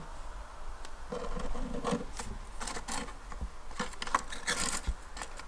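Hands handling small objects on a dresser top: scattered light clicks, taps and rubbing as a small box is picked up and its lid opened, with a cluster of clicks after four and a half seconds.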